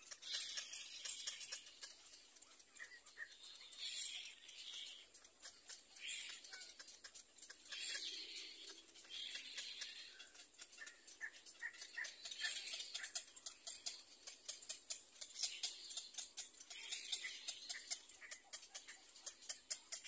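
Little black cormorant chicks begging to be fed in the nest: high, rasping calls in bursts every second or two, over rapid clicking.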